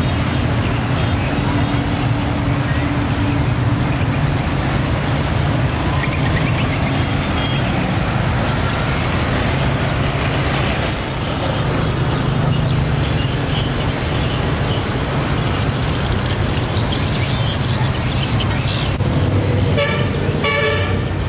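Steady road traffic: vehicle engines running, with a horn sounding in the first few seconds.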